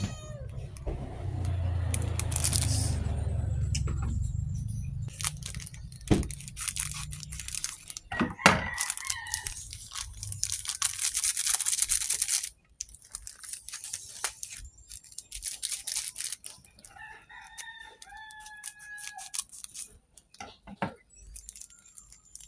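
Foil seasoning sachets crinkling and being cut and squeezed into an instant noodle cup, with a rooster crowing in the background: one long, steady crow about three quarters of the way through.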